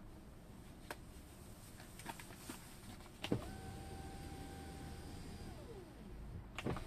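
Tesla Model 3 power window motor driving the glass: a click, then a steady whine for about two seconds whose pitch drops as it stops, followed by a knock. There is no squeak: the glass's rubber seal has just been lubricated with silicone.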